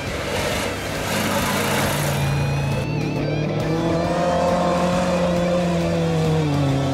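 Off-road race trucks accelerating hard on a dirt track, engines running at high revs with tyres throwing dirt, loudest in the first two seconds. Background music plays along with them.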